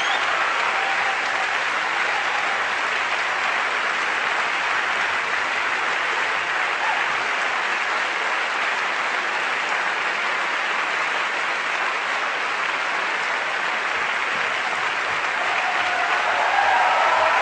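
Theatre audience applauding steadily in a sustained ovation.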